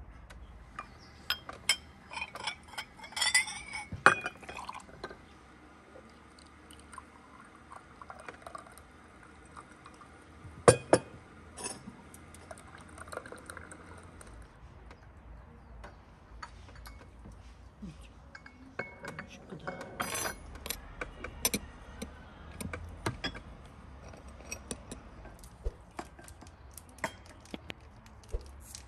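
Glass tea glasses, saucers and teaspoons clinking on a wooden table, with tea poured from a samovar's tap into a glass. Sharp clinks come scattered through the sound, the loudest about four and eleven seconds in.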